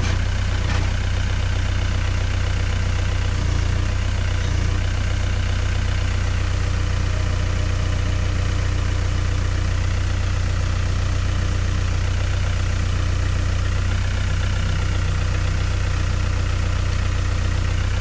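Mahindra compact tractor's diesel engine running at a steady low note while its front-loader grapple moves a log.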